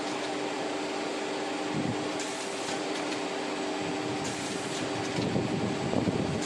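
Steady machine hum and hiss of a delta-robot carton packing line running, with a few soft knocks and clatter near the end.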